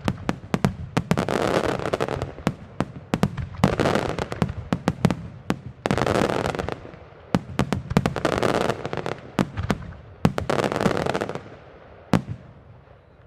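Fireworks finale barrage: many sharp salute bangs fired in quick succession over rolling swells of shell bursts. The barrage thins out near the end, with one last bang.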